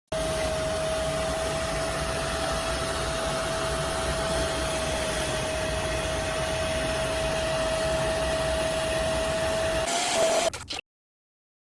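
Hoover CleanSlate portable carpet and upholstery spot cleaner's motor running: a steady whirring hiss with a whine held on one pitch. The sound shifts briefly near the end and then cuts off abruptly.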